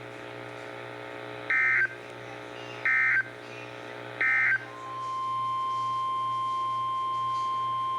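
Emergency Alert System SAME header: three short warbling data bursts about a second and a half apart, followed by the steady single-pitch NOAA Weather Radio alert tone, which opens a new severe thunderstorm warning.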